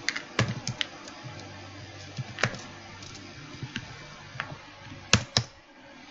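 Typing on a computer keyboard: scattered, irregular key clicks, with two louder clicks a little after five seconds in.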